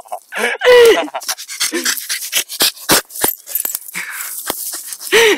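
Staffordshire Bull Terrier mix playing with a dry branch: a string of sharp cracks and crackles as twigs snap and scrape, with panting. Two short, loud vocal cries stand out, one about a second in and one near the end.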